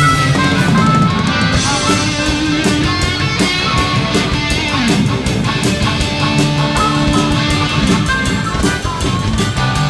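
Live rock band playing: electric guitars, bass and a drum kit keeping a steady beat, with a harmonica played into a vocal microphone.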